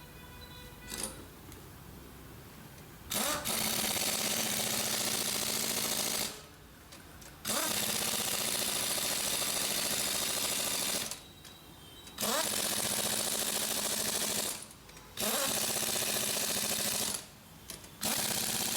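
Air impact wrench run in five bursts of a few seconds each, each starting with a quick rise in pitch. It fits a wheel being bolted back on after a tyre change.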